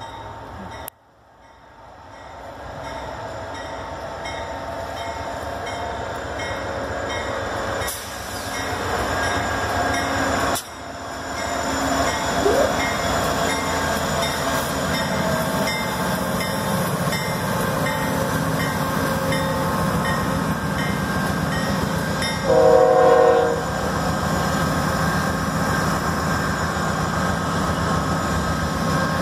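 Amtrak Genesis diesel locomotive and its train approaching and passing close by: the engine and wheel noise grows louder over the first ten seconds or so, then holds as a steady loud running noise. About three-quarters of the way through, a train horn sounds once for about a second, the loudest moment.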